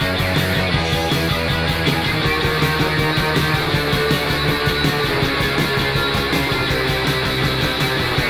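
Post-punk noise-rock recording: electric guitars, bass and drums playing a loud, dense passage over a steady, even beat.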